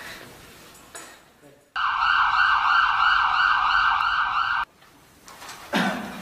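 Ambulance siren with a fast, even warble, starting abruptly about two seconds in and cutting off suddenly about three seconds later.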